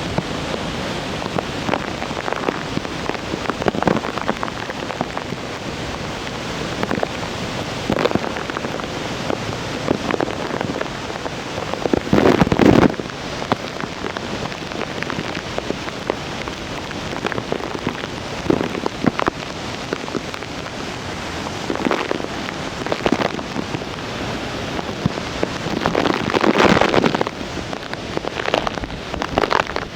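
Nunobiki Ondaki waterfall running heavy with typhoon runoff: a steady roar of falling water. The roar swells louder briefly a few times, most strongly near the middle and again near the end.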